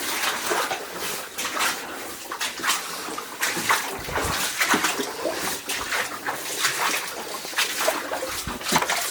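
Water splashing and sloshing in quick, irregular strokes, the sound of someone wading through knee- to thigh-deep water in a flooded mine tunnel.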